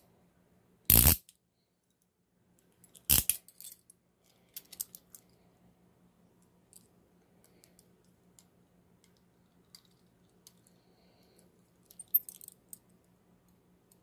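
Steel Hiatt Peerless handcuffs being handled: the toothed bow is run through the single-pawl ratchet in two short, loud clicking runs about one and three seconds in. Softer metal clicks and clinks follow, with a small cluster near the end.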